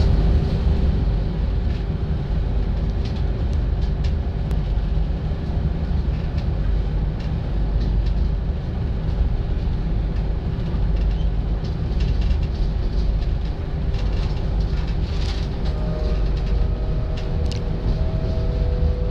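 Inside a TER regional train pulling out of the station: a steady low rumble of the carriage running over the track with a constant hum and a few light clicks. From about 16 seconds in, a faint whine rises slowly in pitch as the train gathers speed.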